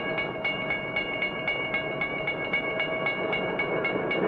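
Railroad grade-crossing warning bell ringing, about four strokes a second, over the rumble of a passing train; the bell stops near the end.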